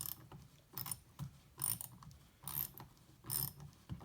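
Socket ratchet clicking in short bursts, about one a second, as it turns a 6 mm x 1.0 thread tap into a drilled-out aluminium clipper head.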